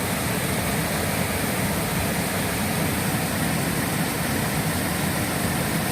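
Waterfall and fast-running river water, a steady, even rushing noise.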